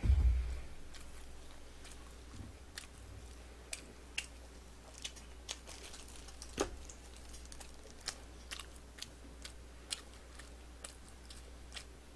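A heavy thump as a plastic cola bottle is set down on the table, then close-miked chewing of glazed fried chicken pieces (dakgangjeong), with short sharp clicks and small crunches every half second or so.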